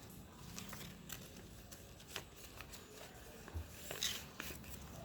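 Paper being handled: scattered small crinkles and taps, with a brief louder rustle about four seconds in.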